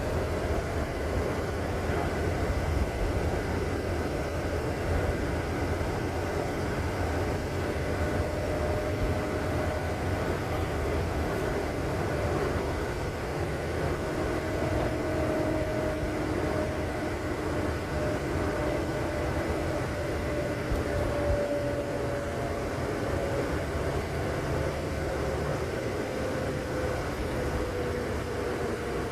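A vehicle running steadily: a continuous low rumble with a faint whine that drifts slowly up and down in pitch.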